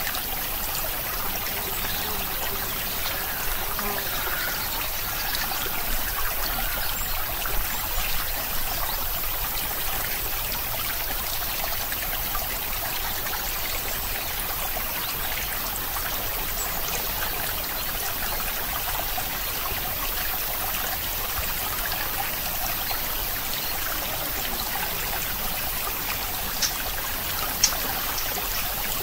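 Steady running water, like a small stream trickling, with a few faint clicks, the clearest near the end.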